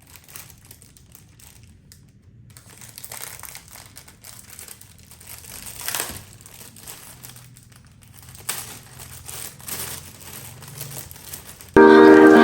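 Faint, irregular rustling and crinkling as something is handled and moved. Near the end, loud background music with singing cuts in.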